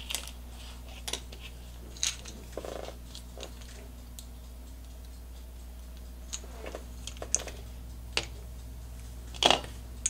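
Scattered light metallic clicks and clinks as screws are handled and fitted back into the steel case of an HP 6200 Pro power supply, with one louder knock near the end.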